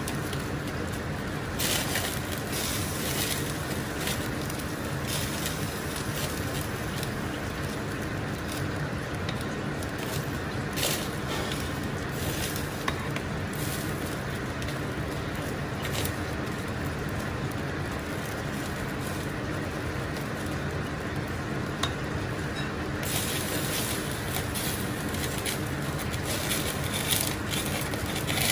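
Large stockpot of chicken-foot paitan broth at a hard rolling boil, bubbling and splashing as a ladle stirs through it, over a steady rushing noise.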